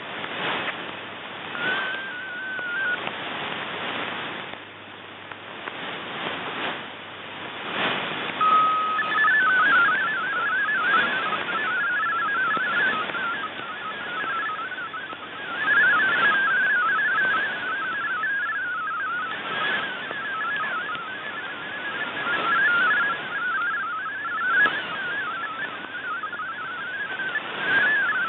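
MFSK32 digital text signal received over shortwave radio: a warbling stream of rapidly hopping tones, heard through hiss and fading static. A short burst of tones about two seconds in is the mode-identifying RSID, and a steady tone about eight seconds in leads into the data stream.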